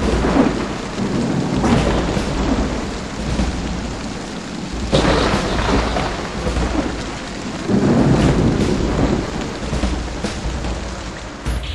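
Thunderstorm: steady heavy rain with several rolls of thunder swelling up about 2, 5 and 8 seconds in.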